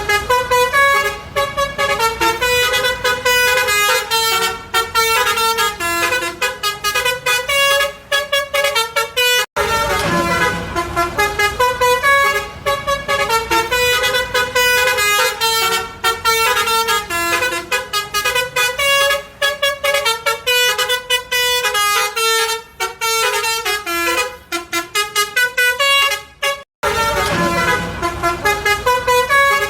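Telolet basuri multi-tone bus horns playing fast melodic tunes, the notes changing every fraction of a second. Two abrupt breaks, about nine seconds in and near the end, join separate horn clips.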